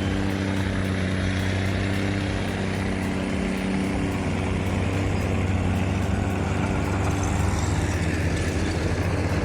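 Loaded Kenworth truck's diesel engine working hard under load, holding a steady pitch.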